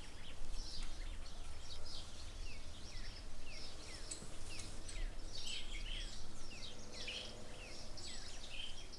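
Small birds chirping in outdoor ambience: many short, falling chirps, several a second, over a steady low rumble.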